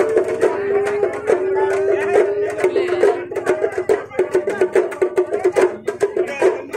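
Music: a held melody line stepping up and down in pitch over fast, dense drum strokes.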